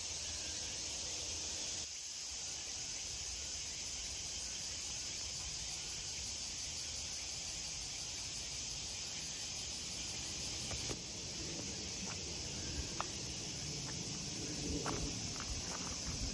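Steady, high-pitched chorus of insects in summer woodland. Near the end it is joined by a few faint clicks and scuffing footsteps on gravel.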